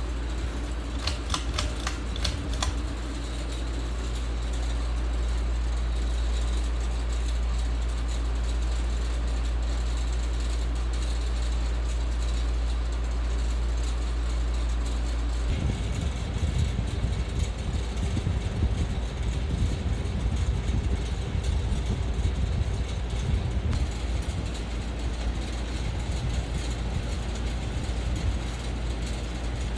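Ceiling fan running, its moving air hitting the microphone as a steady low rumble. A few sharp clicks come one to three seconds in, and past halfway the rumble turns uneven and gusty.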